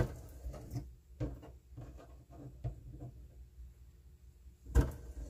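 Kitchen knife knocking on a cutting board while slicing fish for sashimi: a run of irregular knocks and taps, the loudest at the start and another near the end.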